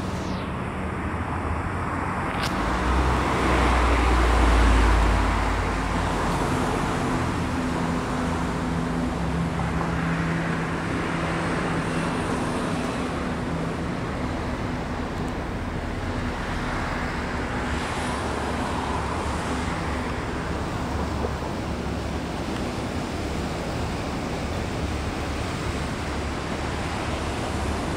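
Steady city traffic noise with a low engine hum, swelling into a deeper rumble about three to five seconds in.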